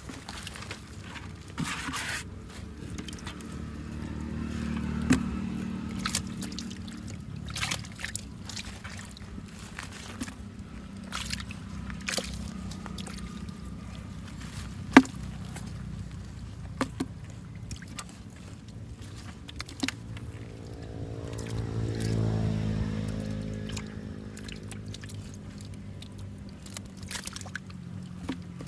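A hand sloshing and scraping in a shallow pool of muddy water while grabbing small eels, with scattered sharp splashes and clicks. A motor engine hums underneath, growing louder and shifting in pitch about three-quarters of the way in.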